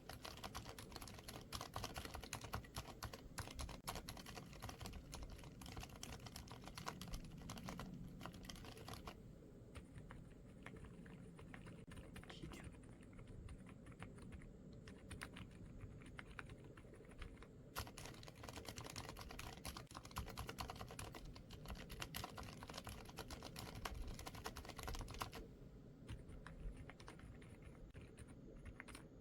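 Cherry Xtrfy Honey silent tactile keyboard switches being typed on in a rapid run of soft keystrokes. The clicking goes duller and quieter for a stretch about a third of the way in and again near the end.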